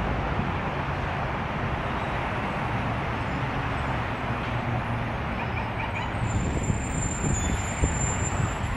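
Steady rumble and running noise of a moving vehicle, with a few light knocks and faint high squeals toward the end.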